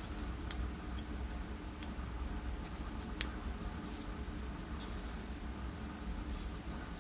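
Scattered light metallic clicks and scrapes of a shim and small tools working in a DOM pin tumbler lock cylinder as it is readied for gutting, over a low steady hum. About half a dozen clicks, the sharpest about three seconds in.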